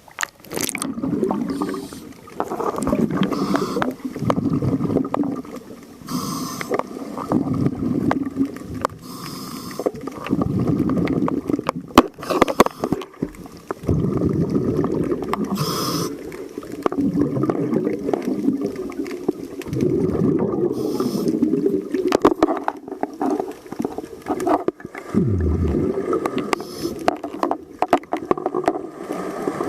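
Scuba diver breathing through a regulator underwater: exhaled bubbles gurgle in bursts a few seconds long, with quieter gaps and short hisses between them.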